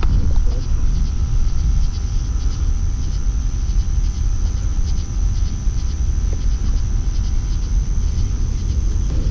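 Wind buffeting the microphone as a heavy, uneven low rumble, with a thin steady high-pitched whine that stops near the end.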